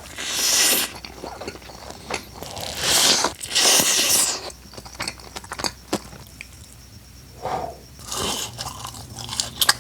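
Close-miked biting and chewing of fast food: loud crunchy bites at the start, around three to four seconds in and again near the end, with wet chewing and small clicks between.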